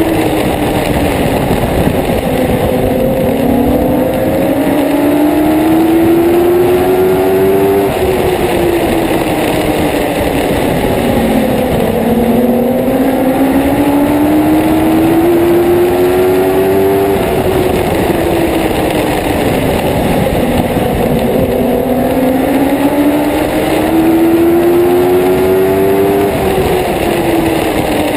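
Dwarf race car's motorcycle engine at racing speed, heard from the car's roof. Its pitch climbs steadily down each straight, then drops sharply as the driver lifts for the turns, three times over about nine seconds apart.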